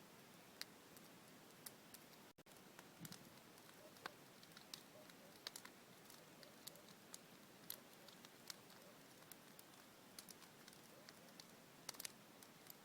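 Large wood bonfire burning, heard faintly: irregular sharp crackles and pops over a low steady hiss.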